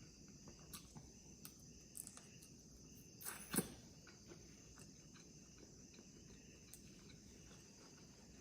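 Near silence: faint mouth clicks from quiet chewing, with one louder smack about three and a half seconds in, over a steady high insect chirring in the background.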